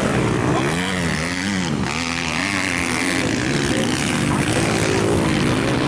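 Several motocross dirt bikes revving on the track, their engine pitch rising and falling with the throttle, with a sharp up-and-down rev about a second in.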